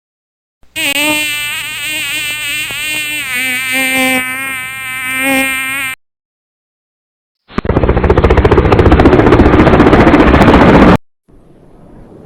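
Sound-effect previews played one after another: an insect buzzing with a wavering pitch for about five seconds, then, after a short gap, a loud, rough noise with a fast rattle for about three and a half seconds, then a rising whoosh that begins near the end.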